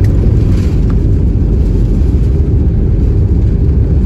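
Airliner cabin noise as the plane rolls along the runway after landing: a loud, steady low rumble.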